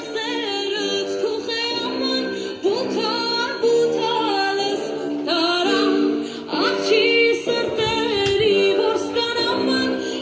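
Background music: a song with a woman singing a melody over an accompaniment.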